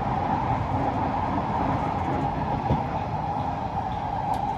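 Kawasaki C151A metro train running, heard inside the passenger carriage: a steady running roar with a strong hum just under 1 kHz and a low rumble underneath. There is a faint tick near the end.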